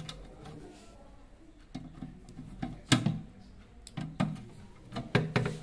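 Screwdriver tightening the mounting screws of a fan heater's thermostat against the sheet-metal frame: a string of irregular metal clicks and short scrapes, the loudest about three seconds in.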